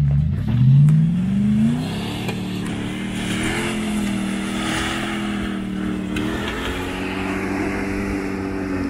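Jeep Grand Cherokee's engine revving up over the first two seconds, then held at high revs, the pitch wavering slightly, as it climbs a steep slope of loose rock under load.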